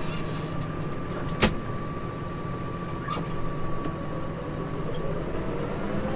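Case Maxxum 150 tractor engine running steadily while ploughing, heard from inside the cab, with a thin steady whine over the rumble. A sharp click comes about a second and a half in, and a fainter one near three seconds.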